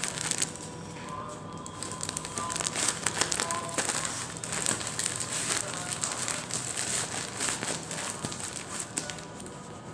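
Black plastic courier mailer bag, sealed with packing tape, crinkling and crackling in irregular bursts as it is handled and turned over. Near the end a knife is put to the plastic to cut it open.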